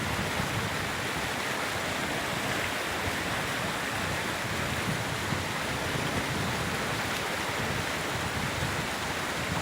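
Waterfall: steady rushing and splashing of falling water.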